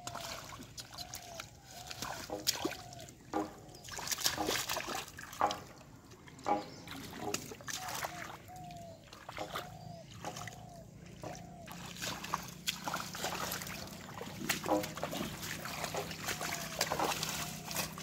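Shallow muddy water splashing and sloshing in irregular bursts as hands grope through mud and water weeds and grab a fish.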